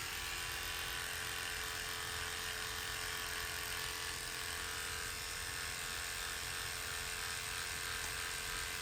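Electric hair clipper buzzing steadily as it shaves a head.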